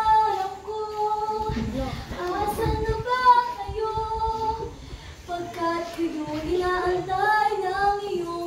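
A teenage girl singing unaccompanied, holding long notes that slide up and down, with short breaks between phrases.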